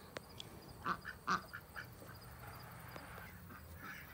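Domestic ducks quacking a few short times, the two loudest quacks about a second in.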